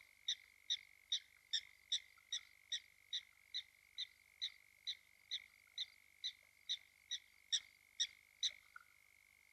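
A frog at a waterhole calling a short, sharp note over and over, about two and a half times a second, with the calls stopping shortly before the end. Under the calls runs a steady high continuous drone.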